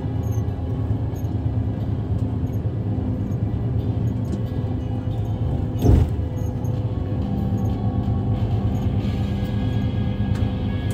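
Steady engine and road drone inside a moving vehicle, with music playing over it. A single thump comes about six seconds in.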